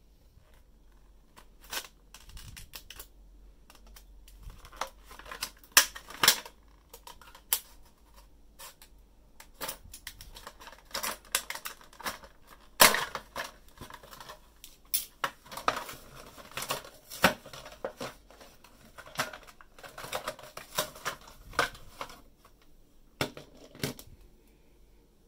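Hands unpacking a child's spoon and fork from a stiff plastic blister pack and case: irregular crackles, clicks and taps of hard plastic, some of them sharp and loud.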